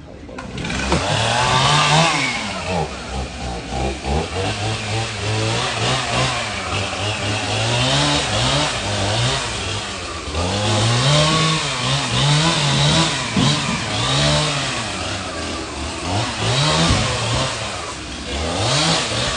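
Two-stroke chainsaw cutting into a fallen tree, revving up and dropping back over and over as it works through the wood.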